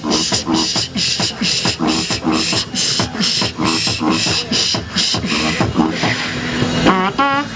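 Two beatboxers performing together into handheld microphones: a steady beat of vocal hi-hat, snare and bass sounds. Near the end, wavering pitched vocal sounds come in over the beat.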